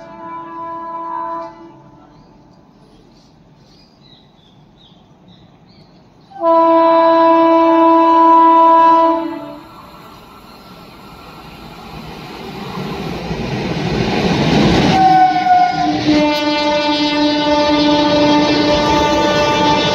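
Indian Railways electric locomotive hauling an express passenger train through a station: its horn sounds briefly at the start, then a long blast of about three seconds from about six seconds in. The rumble of the train grows as it arrives, and from about fifteen seconds the horn sounds again and is held while the coaches pass with a clickety-clack of wheels over the rail joints.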